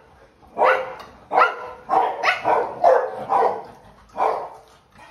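St Bernard barking in a series of about six deep, loud barks, irregularly spaced less than a second apart.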